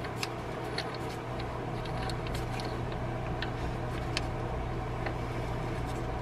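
Scattered light metallic clicks and ticks of a crank bolt and socket being turned by hand into a crankshaft pulley, over a steady low hum.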